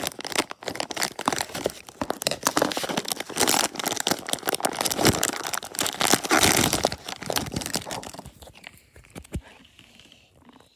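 Blind-bag wrapper crinkling and tearing as it is handled and opened by hand, a dense crackle that thins out and gets quieter in the last couple of seconds.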